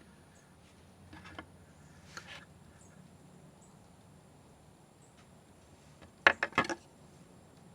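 Pipe fittings being handled during dry-fitting: a few faint clicks early, then a quick run of four or five sharp knocks about six seconds in, like hard parts knocked together.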